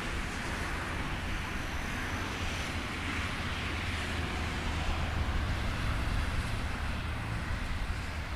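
Wind buffeting the microphone with a low, unsteady rumble, over a constant outdoor hiss.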